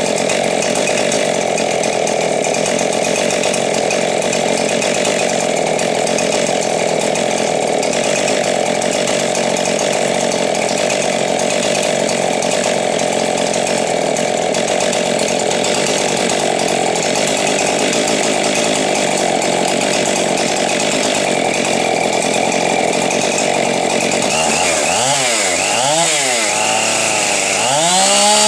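Husqvarna 576 XP two-stroke chainsaw with a West Coast performance build, running at high, steady revs. Near the end the engine pitch drops and climbs back up three times as the throttle is let off and reapplied.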